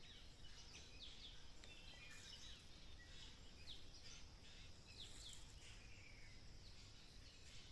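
Birds chirping faintly: many short, quick falling chirps scattered through, over a thin steady high whine and low background hum.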